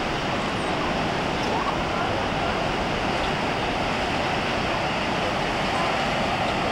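Ocean surf breaking on a rocky shore: a steady wash of noise with no break. Any seals on the rocks are drowned out by it.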